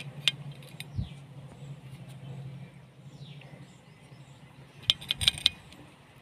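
Faint outdoor ambience with birds chirping in the background, a few short falling calls. A low hum fades away over the first few seconds, and a quick run of sharp clicks comes about five seconds in.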